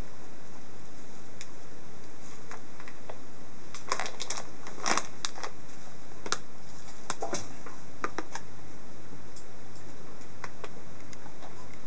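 A ferret scrabbling over crinkly plastic and foil bags: a run of crinkles and sharp clicks from about four seconds in to about eight seconds, then a few scattered ticks, over a steady hiss.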